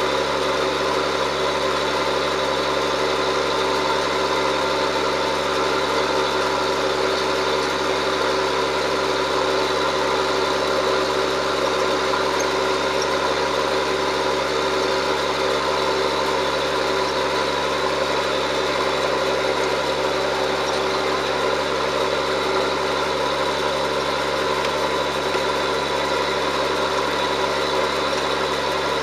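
John Deere 7710 tractor's diesel engine running steadily, at an even pitch and level, while ploughing.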